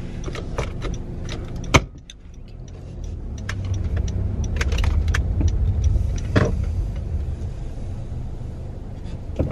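Light clicking and rattling inside a car, ending in a sharp click about two seconds in, followed by the car's engine and road noise as heard from the cabin, growing louder as the car pulls away and then holding steady as it drives.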